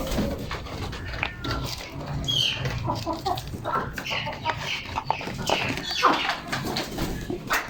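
Baby parrots calling: many short, overlapping squawks and chirps, several of them falling in pitch.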